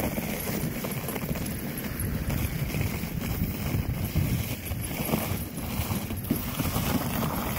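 Dog sled moving over packed snow behind a three-dog team: steady scraping of the sled on the snow, with the dogs' footfalls.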